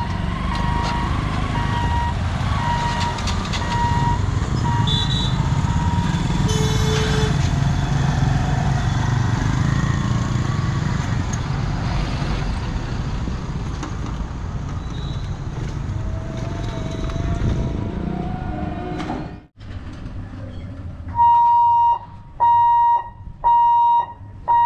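Road traffic crossing a railway level crossing: motorcycle, e-rickshaw and car engines running, with a few short tones. About 21 seconds in, the level crossing's electronic warning hooter starts: a steady-pitched beep repeating about once a second, which signals that the boom barrier is about to close for an approaching train.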